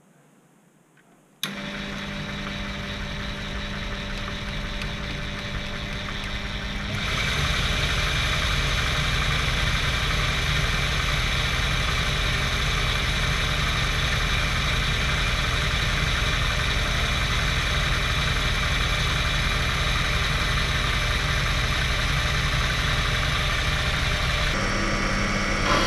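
Proxxon PD 250/e mini lathe switched on about a second and a half in and running steadily with a motor whine, getting louder from about seven seconds in, while the tool is run along the freshly cut thread to clean off the burr.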